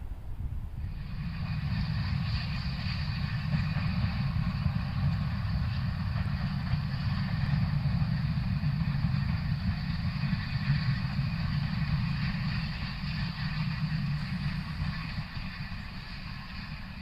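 Industrial steam locomotive running past with a heavy low rumble and a hiss above it. The sound builds about a second in and eases off near the end.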